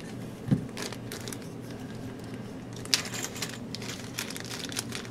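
Clear plastic parts bags crinkling and rustling as they are handled and searched through, with scattered light clicks, a soft thump about half a second in and a sharper click about three seconds in.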